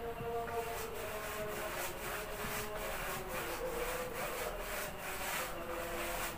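Paintbrush bristles scrubbing a waterproofing coating onto a large woofer's cone: quick scratchy back-and-forth brushing, about two strokes a second, starting about half a second in. A faint steady hum sits beneath it.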